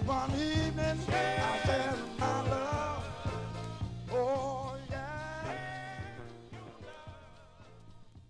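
Soul-funk record played on a vinyl turntable, with a steady bass line under a melodic lead. It fades out gradually, ending the track.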